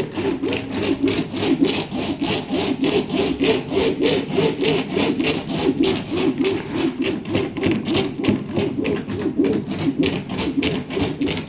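Fibreglass laminating roller worked rapidly back and forth over wet resin and glass matting, giving a rhythmic rasping of about four strokes a second.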